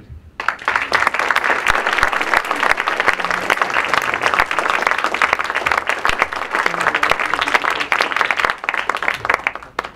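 Audience applauding: a dense, steady clapping that starts about half a second in and stops quite suddenly near the end.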